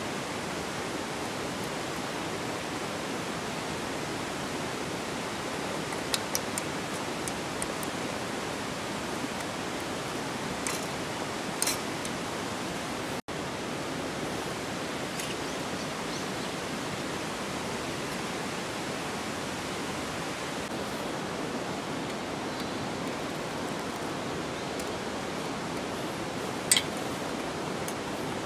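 Steady heavy rain hissing without a break, with a few sharp taps of single drops here and there, the loudest near the end.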